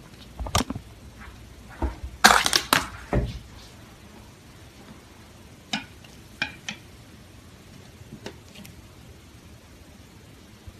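Slime being handled, giving sharp crackles and pops. There is a dense cluster of them about two to three seconds in, then a few single pops spaced out after.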